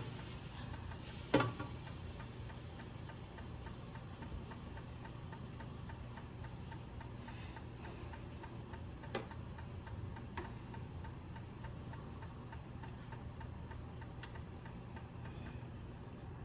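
Faint, quick, even ticking over a low steady hum, with a single louder knock about a second in and two light clicks near the middle.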